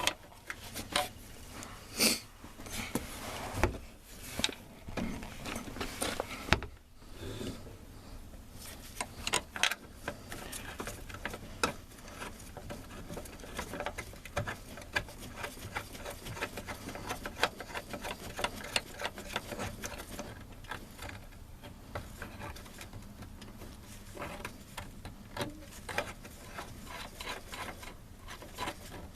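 Ratchet wrench clicking in rapid runs as the bolts of a truck's door hinge are run in and tightened, with a few louder metal knocks in the first few seconds.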